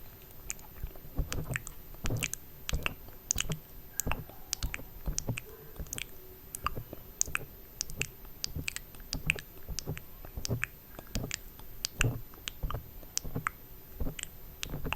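ASMR mouth sounds close to the microphone: irregular wet clicks and smacks, several a second.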